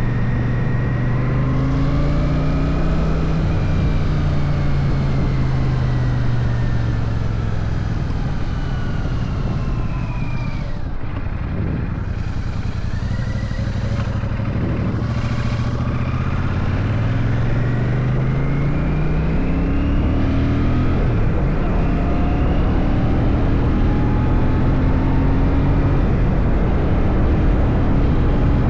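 Royal Enfield Shotgun 650's parallel-twin engine running under way. The engine note falls to a low point about ten seconds in, then climbs again in several rising sweeps as the bike picks up speed.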